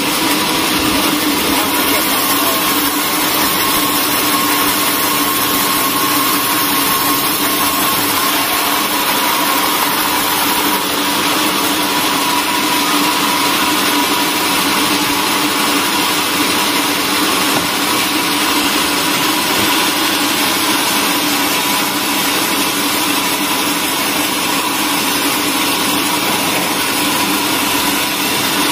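Vertical band sawmill running steadily as its blade cuts a long slab from a hardwood log, a constant mechanical hum with a steady whine under it.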